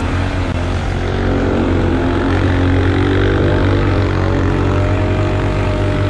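Off-road vehicle engine running steadily at trail-crawling speed, its pitch wavering slightly up and down with the throttle.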